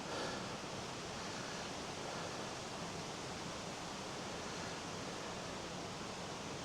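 Steady rushing of a river flowing through a gorge, an even noise with no change.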